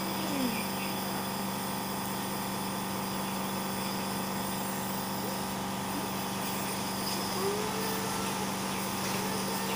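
Small electric nebulizer compressor running with a steady, even hum while it delivers medicine as mist through a baby's face mask, treating the baby's cold and phlegm.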